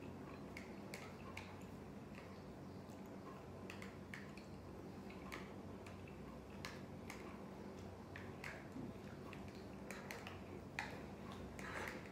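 Faint, irregular mouth clicks and soft chewing of someone eating, over a low steady hum.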